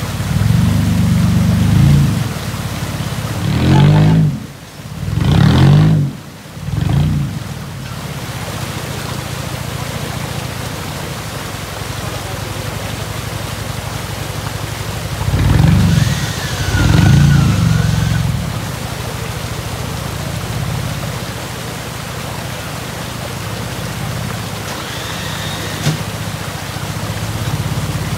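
Off-road vehicle engine revving in repeated bursts, several in the first eight seconds and two more about halfway through, over a steady hiss.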